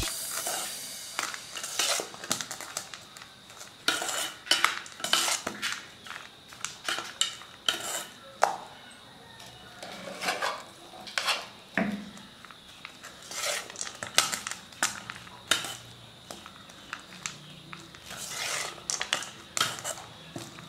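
Metal spoon scraping and clinking against a stainless-steel pan in irregular strokes as cooked rice is stirred and mixed in.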